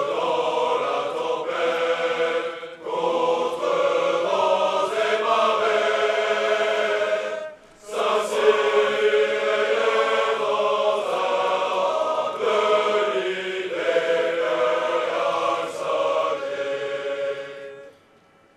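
A large body of voices singing together as a choir in long held phrases, with short breaks about three and eight seconds in; the singing stops near the end.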